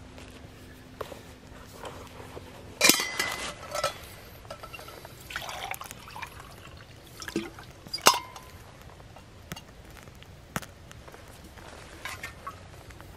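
Stainless steel percolator pot clinking and knocking as its lid is worked and it is set down on a small metal stove, with short metallic rings after the two loudest knocks, about three seconds in and about eight seconds in. Liquid sloshes briefly in the middle.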